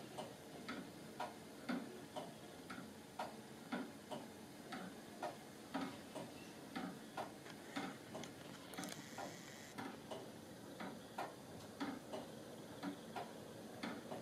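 Motor-driven remontoir wooden-gear clock with balance pendulum ticking faintly and evenly, about two ticks a second, the escapement's wooden parts clicking.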